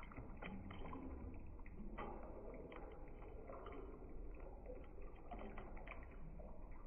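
A steel ladle stirring milk sharbat in a large steel pot: faint sloshing with light scrapes and clinks of the ladle against the pot.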